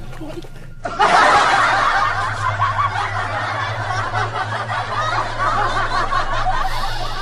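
Laughter sound effect, starting suddenly about a second in and running on as a dense stretch of chuckling, over a low steady hum.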